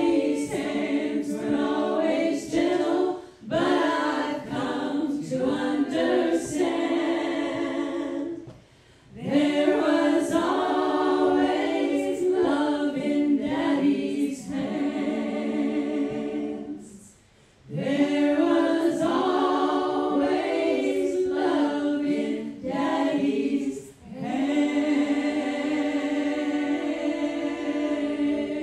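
A small group of women's voices singing a gospel song in harmony through microphones, in long phrases with short pauses between them.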